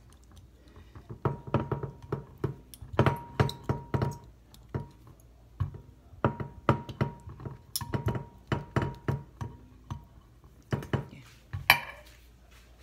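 Silicone spatula scraping and tapping against a glass baking dish while sauce is spread over its bottom. It comes in uneven strokes, a few a second with brief pauses, and the glass rings faintly. A sharper knock comes near the end.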